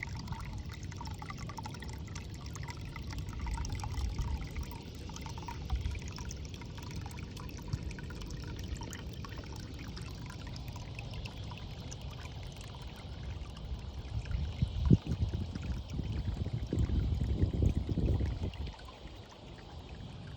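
Water pouring and trickling steadily into a water-lily biotope tub. A sharp thump comes about three-quarters of the way through, followed by a louder low rumble for about two seconds.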